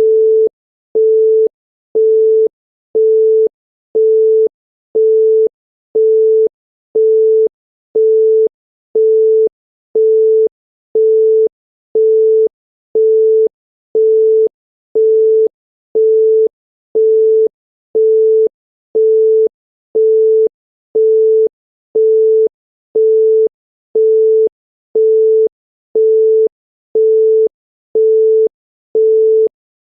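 Older French telephone busy tone: a single 440 Hz tone beeping half a second on, half a second off, about once a second, signalling that the called line is busy.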